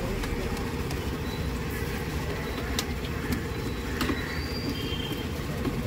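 Steady low rumble of street traffic, with a few sharp clicks and a couple of short high chirps.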